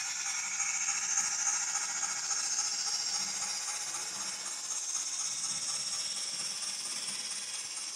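Model steam switcher's factory DCC sound decoder playing a steady steam hiss, with a light mechanical rattle of the locomotive's gears and wheels on the track.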